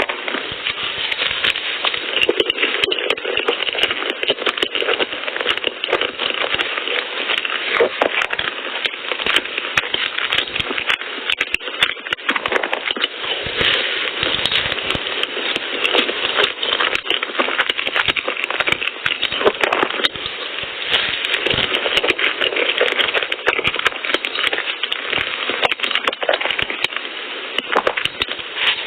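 Close-miked eating sounds: continuous chewing and mouth noises with dense, fine crackling clicks.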